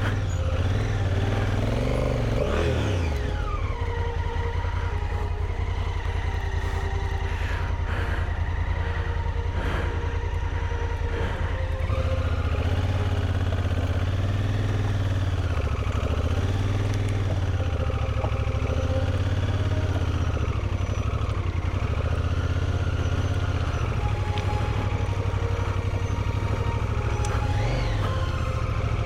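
Honda CRF1000L Africa Twin's parallel-twin engine running at low speed on a rocky dirt track, revving up and dropping back about two seconds in, then rising and falling in pitch again and again as the throttle is worked.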